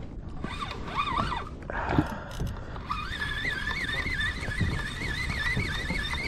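A fishing reel whirring as line moves through it: a steady high whine whose pitch wobbles a few times a second, starting about halfway through, over low wind and water rumble.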